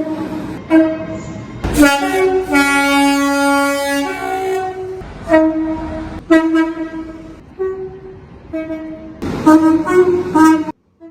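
Train horns sounding a run of blasts at changing pitches: short notes, one longer held chord about three seconds in, then more short blasts. The sound cuts off suddenly near the end.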